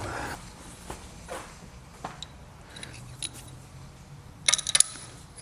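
Small metal parts clinking together as a handful of threaded wheel hanger pins is handled. There are a few light ticks, then a quick rattle of several clinks near the end.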